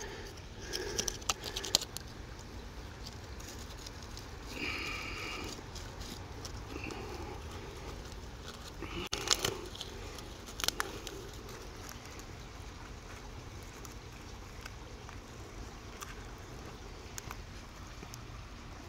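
Faint rustling and crackling of a dry tinder bundle being handled and folded around a smoking ember, with a few sharper clicks about nine to eleven seconds in.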